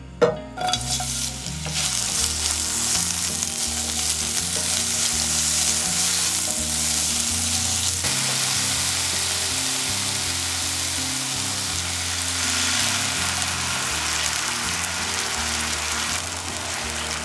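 Sliced onion dropped into hot oil in a nonstick frying pan: a sharp hiss as it hits right at the start, then steady, loud sizzling as the onion fries.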